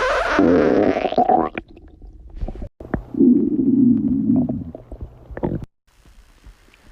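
A girl's stomach growling. A gurgle falls away and fades about a second and a half in, then a steadier low rumble runs from about three seconds to nearly five seconds.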